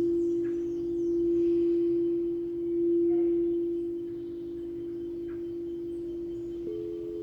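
Singing bowl sounding a steady low ringing tone that swells and fades in slow waves; near the end a second, higher bowl tone comes in and rings alongside it.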